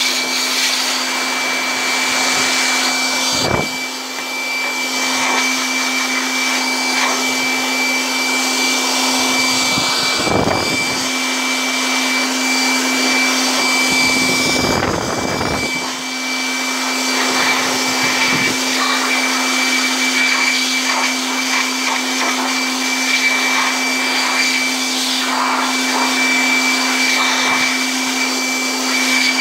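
Electric air blower running steadily: rushing air over a constant motor hum and a thin high whine. The airflow changes briefly three times, about a third of the way in, about a third of the way through, and near the middle.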